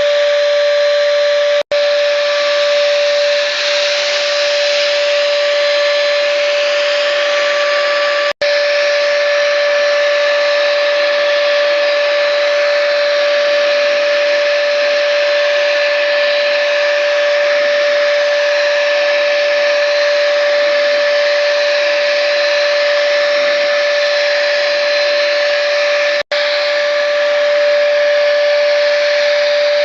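Electric paint spray gun running steadily while spraying primer: a constant high whine over the hiss of the spray. It cuts out for an instant three times.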